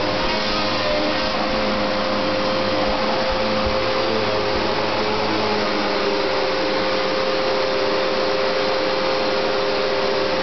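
Vacuum cleaner running steadily: a constant airflow rush with a steady motor whine.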